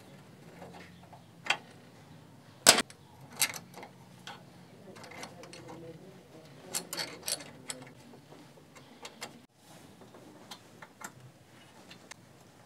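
Irregular sharp metal clicks and clinks as a thin steel rod is handled against the jaws of a cast-iron bench vise, the loudest knock about two and a half seconds in.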